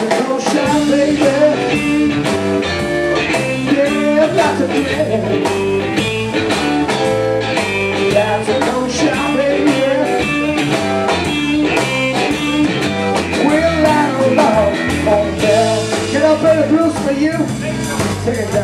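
Live blues-rock trio playing: electric guitar, bass guitar and drum kit in a steady blues groove.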